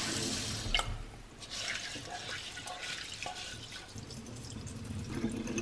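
Tap water running into a saucepan of sushi rice being rinsed, then the cloudy rinse water poured off from the pan into a metal sink.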